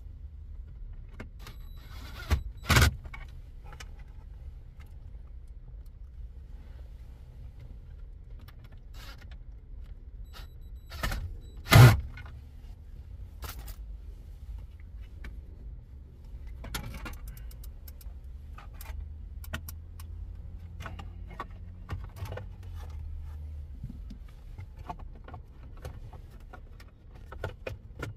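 Plastic dashboard trim and console parts being handled and pressed into place: scattered light clicks and knocks, with two pairs of loud sharp snaps, one about three seconds in and one about twelve seconds in, over a low steady rumble.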